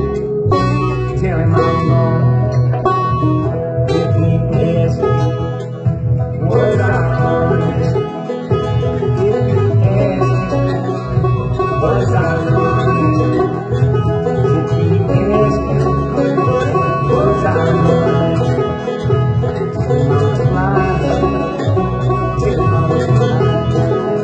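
Banjo picking an instrumental break in a country-folk worksong, over steady guitar and bass accompaniment.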